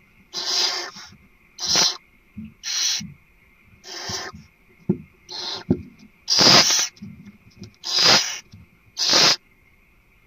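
Barn owls hissing: a run of harsh, noisy hisses, roughly one a second, some louder than others, with a few soft knocks between them.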